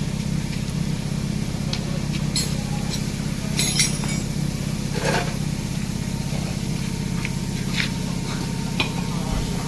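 Hand tools and metal parts clinking and knocking now and then during engine removal work on a car, over a steady low hum.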